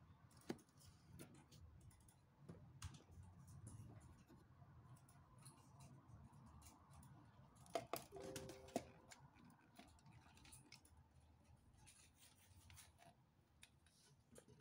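Faint clicks and light knocks of LEGO Technic plastic parts as the model car's mechanisms are worked by hand, with a few sharper knocks and a short squeak about eight seconds in.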